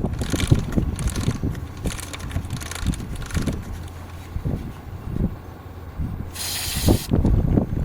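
Aerosol can of motorcycle chain cleaner sprayed in one hissing burst of under a second about six and a half seconds in, among low knocks and handling noise.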